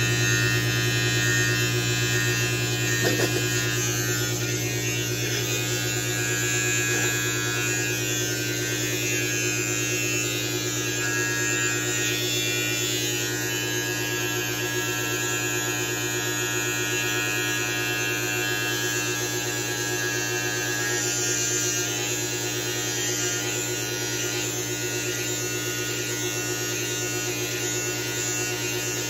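Electric beard trimmer with a metal T-blade, buzzing steadily as it is run along the beard on the jaw and neck.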